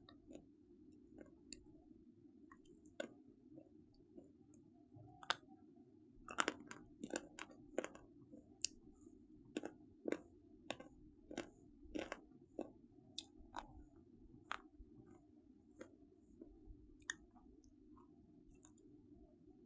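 Irregular sharp crunches and crackles, often several a second and thickest in the middle, over a steady low hum.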